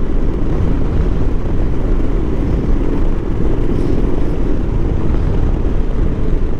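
Motorcycle riding at road speed: a steady drone of engine and road noise, with wind rumbling on the microphone.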